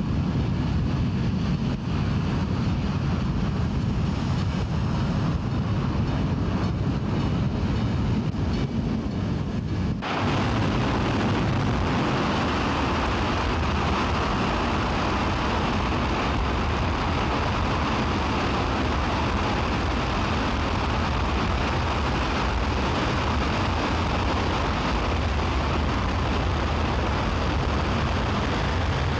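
Space Shuttle Main Engine, a liquid-hydrogen/liquid-oxygen rocket engine, firing on a test stand: a loud, steady rush of exhaust noise, heavy in the low end. About ten seconds in it changes abruptly to a brighter, fuller sound.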